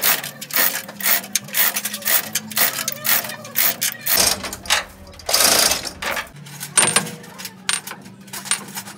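Steady hammering on the steel gland of a heavy tipper truck's hydraulic jack cylinder, metal on metal at about two to three blows a second, stopping about four seconds in. A louder burst of noise under a second long follows just past the middle, then a few light metal clinks.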